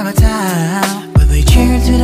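R&B-style background music with a gliding melody line. About a second in, a heavy, deep bass and beat come in and the music gets louder.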